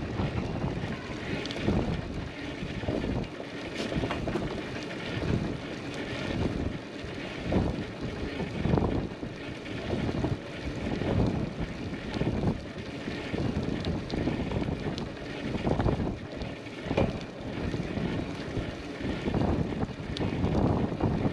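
Wind buffeting the microphone of a camera on a moving bicycle, rising and falling in uneven gusts, over the rolling noise of the ride.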